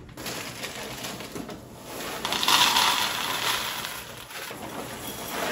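Dry cereal, Golden Crisp and Honey Nut Cheerios, pouring from the boxes into a ceramic bowl and a plastic bowl: a rattling patter, loudest just after two seconds in and trailing off more softly.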